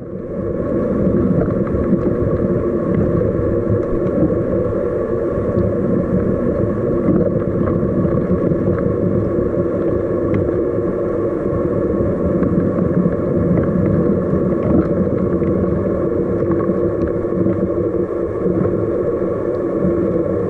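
Oxo drip coffee maker near the end of its brew cycle, heard from inside its water tank: a steady, muffled rumble with faint ticks scattered through it.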